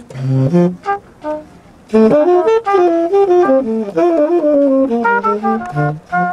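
Tenor saxophone playing a jazz line: a few short, separate notes with gaps for about two seconds, then a continuous run of quickly changing notes that stops just before the end.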